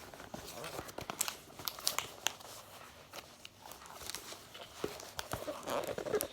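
Packaging of a talking alarm clock being opened by hand: irregular crinkling and tearing with scattered sharp clicks.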